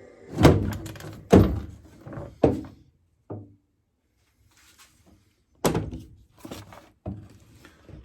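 A series of hard thunks and knocks on an aluminium boat's hull as a home-built wooden bench and battery box are pried out and set down: three loud knocks in the first few seconds, a pause, then another loud knock and a few lighter ones.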